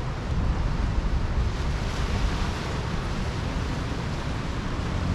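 Ocean surf washing onto a sandy beach: a steady hiss of small breaking waves, with low wind rumble on the microphone.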